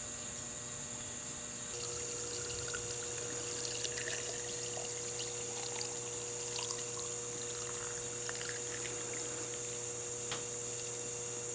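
Liquid being poured into a container, a light trickle, over a steady high whine and low hum.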